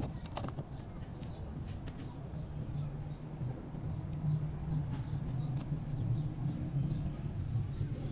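Outdoor ambience: a steady low rumble with short, faint bird chirps scattered through it and a few light clicks near the start.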